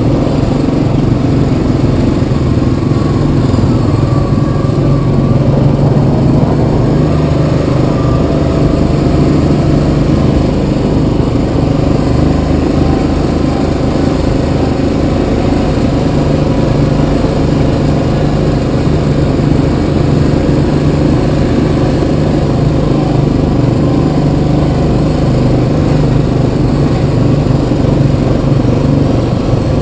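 Yamaha Kodiak 700 ATV's single-cylinder four-stroke engine running steadily under way, with small rises and falls in pitch.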